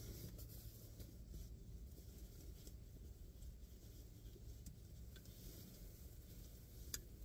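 Near silence with a low steady hum, faint scattered ticks of small objects being handled, and one sharper click about seven seconds in.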